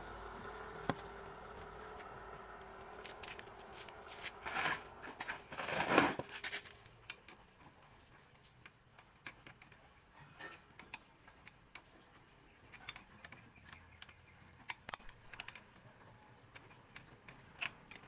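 Metal wrench clicking and clinking on the cylinder-head bolts of a Honda motorcycle engine as they are undone, in scattered sharp clicks; a dense run of clinks about four to six seconds in is the loudest. A faint steady hum lies under the first few seconds.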